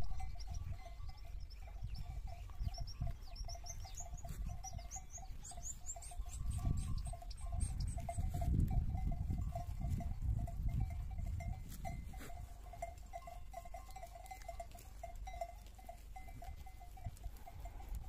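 Flock of sheep grazing, with a steady warbling tone throughout and a run of short high chirps in the first half. Wind rumbles on the microphone, strongest around the middle.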